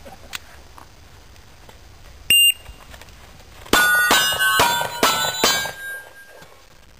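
Pistol shots on steel plate targets, each hit followed by a bright metallic ring. One shot about two seconds in, then a quick string of about five shots roughly two a second, the plates ringing at different pitches.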